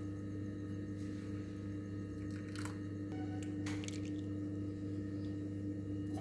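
A steady low hum, with two light clinks of a steel tea strainer against glass tea cups, about two and a half seconds in and again a second later.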